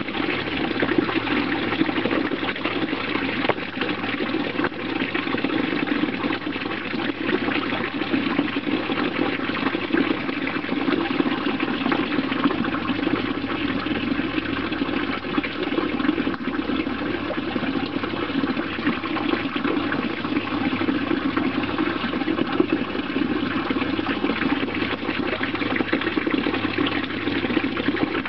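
Running water, a steady even rush that does not change.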